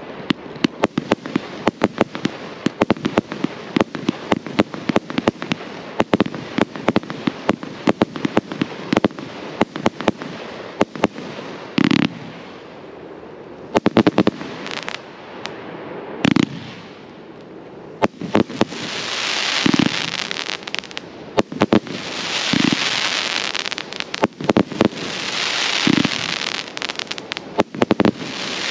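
A 218-shot 'Master Party' firework cake firing a rapid, dense barrage of shots for about the first twelve seconds. After that it fires single louder booms every couple of seconds, and in the second half each boom is followed by a long hiss.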